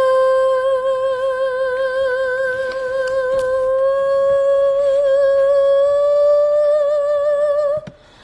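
A woman's voice holding one long sung note with vibrato, drifting slowly up in pitch and cutting off near the end.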